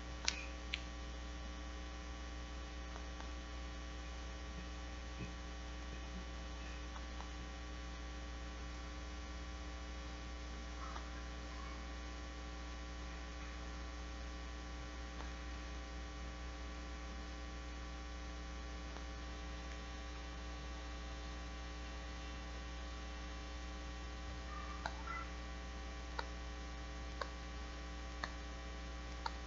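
Steady electrical mains hum with many steady overtones, broken only by a few faint short clicks near the start and several more near the end.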